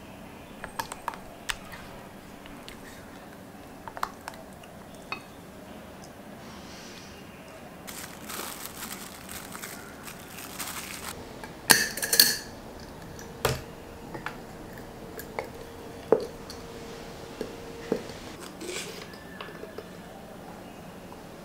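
Close-up kitchen handling sounds. A silicone spatula taps lightly on a bowl, then plastic wrap crinkles as it is stretched over a glass bowl. A few sharp clinks and knocks of glass ring on briefly, and they are the loudest sounds.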